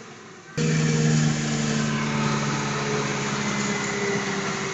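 Remote-control Huina toy concrete mixer truck running, a steady engine-like drone that starts abruptly about half a second in and holds.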